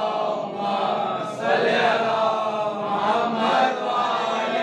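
Chanting in long, held melodic tones that run on without a break.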